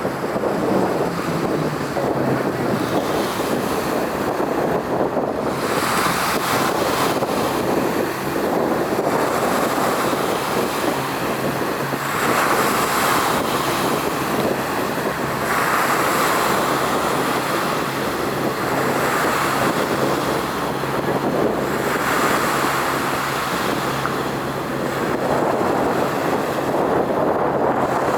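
Outdoor wind buffeting the microphone, with a faint steady low hum underneath and surges of rushing noise every few seconds.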